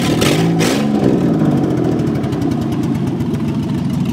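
Minivan engine running as the van drives past across a gravel lot. Its pitch rises and falls in the first second, with a brief hiss, then it settles into a steady run.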